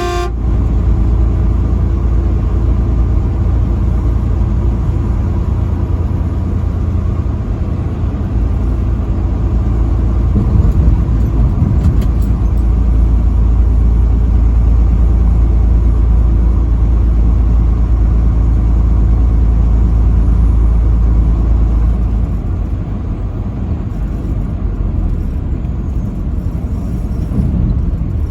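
Steady low rumble of a vehicle driving at highway speed, road and engine noise together. A brief pitched tone cuts off at the very start, and the deepest part of the rumble eases about three-quarters of the way through.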